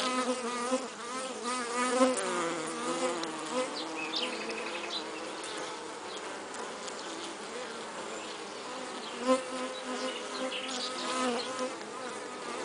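Many honey bees buzzing together in a continuous hum, with single bees' buzzes wavering in pitch as they come and go.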